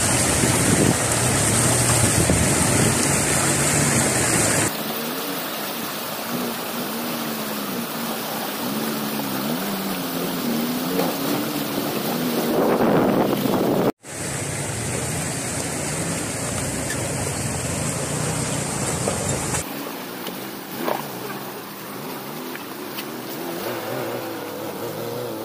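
Off-road 4x4 SUVs driving through a shallow rocky river, their engines revving up and down with the throttle. Under the engines there is rushing, splashing water and wind on the microphone. The sound cuts abruptly about halfway through, from one vehicle's crossing to the next.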